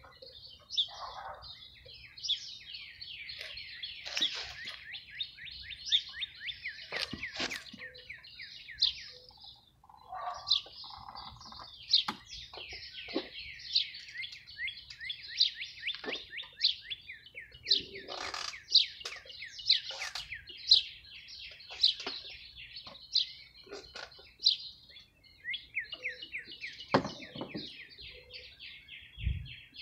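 Small birds chirping and twittering without a break, rapid high chirps, with a few sharp clicks and knocks now and then.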